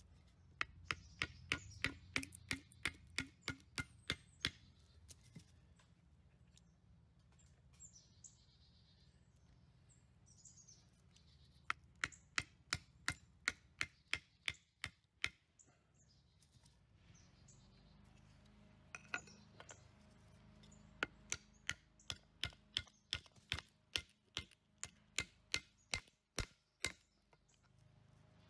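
Sharp, hard strikes in three quick runs of about a dozen each, roughly three a second, with pauses of several seconds between the runs.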